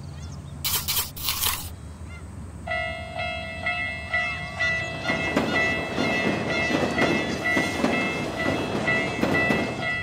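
Level-crossing warning bell ringing in a steady repeating pulse from about three seconds in, with a passing train clattering over the rails through the second half. Two short hissing bursts about a second in.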